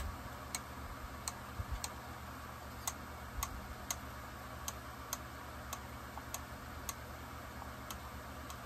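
Light, sharp clicks, about one and a half a second at a fairly even pace, from a hand tool being worked on a chainsaw's partly stripped powerhead, over a steady low hum.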